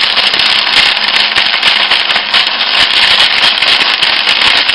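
Small firework burning with a steady crackling hiss.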